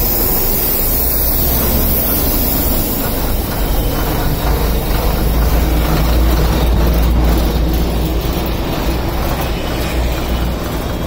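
Loud, steady vehicle rumble with a deep low drone that swells through the middle and eases near the end.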